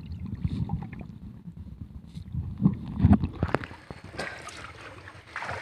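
Water heard through a diver's camera: a muffled underwater rumble, then splashing and sloshing with sharp clicks as the camera comes up through the surface about three seconds in.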